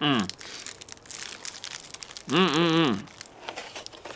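Plastic snack-cake packaging crinkling and crackling as it is handled, with a short hummed voice sound about two and a half seconds in.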